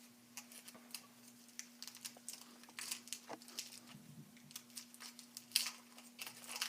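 Foil wrapper of a chocolate figure being peeled and torn open by hand: scattered light crinkles and crackles with a few sharper tears, over a faint steady hum.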